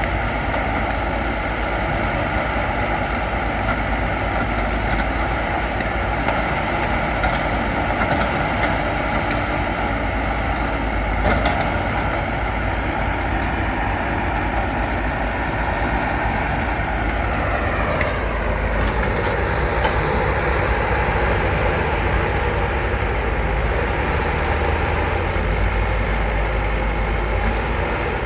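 Heavy diesel engine of earthmoving machinery running steadily at working revs, its pitch gliding down about two-thirds of the way through as the revs drop, then running on steady at the lower speed.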